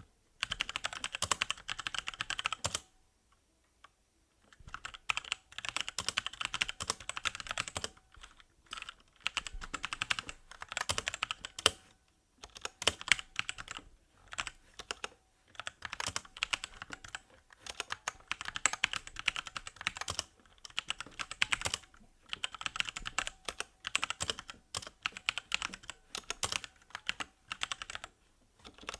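Typing on an SPC Gear GK550 mechanical keyboard with Kailh Brown tactile switches and pudding keycaps: rapid keystroke clicks in runs of a few seconds with short pauses between, the longest pause about three seconds in.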